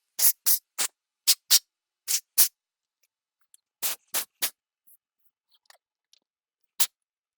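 Short puffs of blown air hissing into the opened GoPro Karma drone body to clear out sand: about a dozen quick bursts, mostly in groups of two or three.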